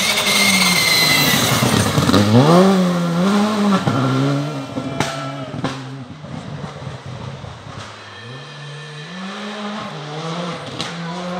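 Rally car engine running hard close by, loudest at the start, its note climbing and dropping back again and again through gear changes as it pulls away. A few sharp cracks come in the middle and near the end.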